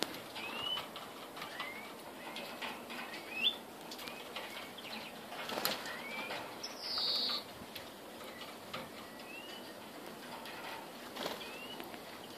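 Caged European greenfinches of the Scottish type calling with short rising notes every second or two, with one short buzzy note about seven seconds in. Sharp clicks and wing flutters come from birds moving about the cage.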